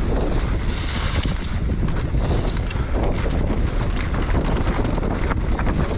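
Wind rushing over the microphone of a fast-moving mountain bike, with the tyres rolling over rough dirt trail and short knocks and rattles from bumps, and a couple of brief hissing swells.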